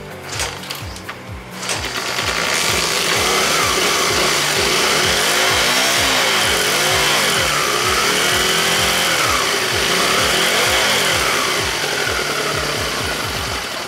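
1978 Honda CD125's small four-stroke parallel-twin engine kick-started, catching about two seconds in. It then runs and is revved up and down several times.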